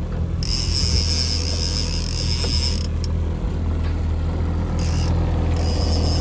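Boat engine running with a steady low drone while a fishing reel is cranked in spells, its mechanism whirring as a hooked salmon is reeled in.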